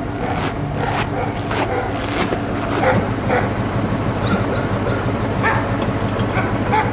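Dogs barking repeatedly in short, sharp calls, over a steady low engine hum.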